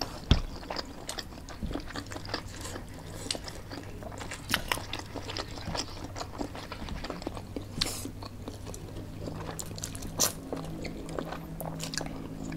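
Close-miked eating: chewing and biting of noodles and fried dim sum, with many short clicks of wooden chopsticks against the food and tray, and noodles slurped near the end.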